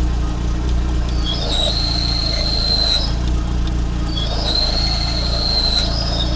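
Idling car engine with a high-pitched whistling squeal from the clutch while the pedal is pressed. The squeal sounds twice for about a second and a half and starts again near the end. The owner takes it for a worn clutch release bearing.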